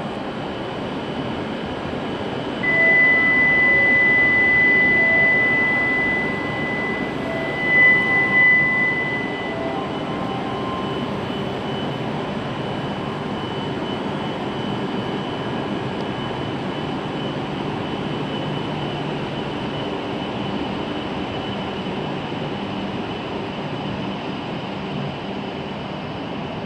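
A steady high electronic warning tone sounds for about seven seconds as the doors close. Under it, a W7 series Shinkansen train pulls out of the platform with a steady rolling rumble and hiss.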